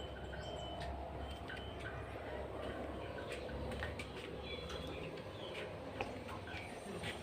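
Birds chirping faintly in short scattered calls over a low steady background hum.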